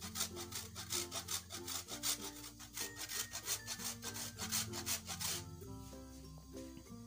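A block of mozzarella cheese rasped back and forth on a small handheld stainless-steel grater, quick scraping strokes several a second that stop about five seconds in.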